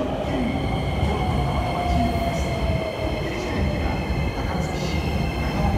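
Hankyu electric commuter train pulling into the platform and slowing, with a steady low rumble of wheels on rail and a motor whine falling in pitch. Several steady high-pitched squealing tones run over it as it brakes.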